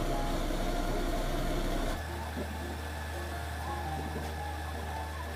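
Induction cooktop heating a pot of water, a steady electrical hum with fan noise; about two seconds in it drops abruptly to a quieter, lower steady hum.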